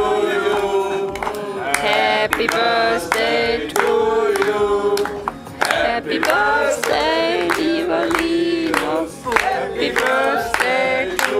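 A group of people singing a birthday song together, clapping along in time, about two claps a second.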